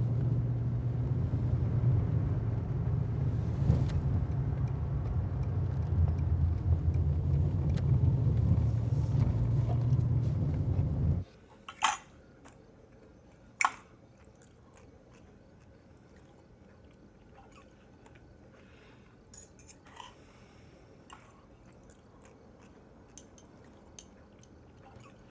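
Steady low rumble inside a car's cabin, cutting off abruptly about eleven seconds in. Then a quiet room with a few sharp clinks of cutlery on plates as people eat.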